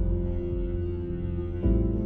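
Ambient background music: sustained synth chords over a deep bass, changing chord once.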